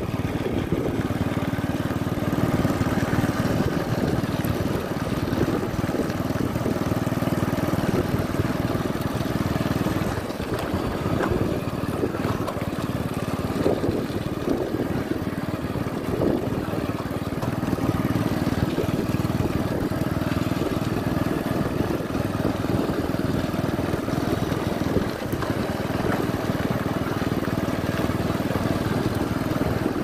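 Motorcycle engine running steadily while riding along at an even pace, its drone mixed with wind noise from travelling.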